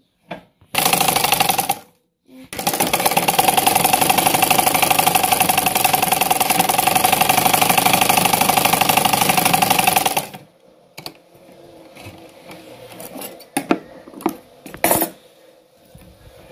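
Domestic sewing machine stitching cloth, with a fast, even needle rhythm. A short run of about a second is followed by a steady run of about eight seconds that stops abruptly. After it come a few scattered light clicks.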